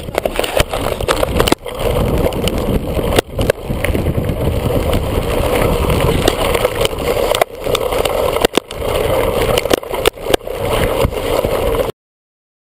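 Riding noise of a mountain bike descending a rough trail, picked up by a camera on the bike: wind rushing over the microphone and the bike rattling, with sharp knocks over bumps. It cuts off abruptly about a second before the end.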